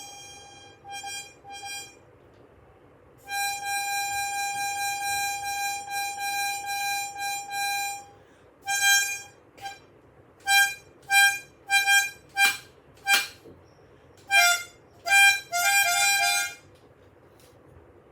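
Car horns honking in a traffic jam: a couple of short beeps, then a long blast of about five seconds, then a run of short honks, with a second, slightly lower-pitched horn joining near the end.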